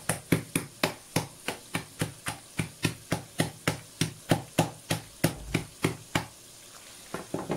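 The back of a kitchen knife repeatedly smacking a large dried fish inside a plastic bag to break it into pieces. The blows come at about three a second and stop about six seconds in, then a couple of lighter knocks follow near the end.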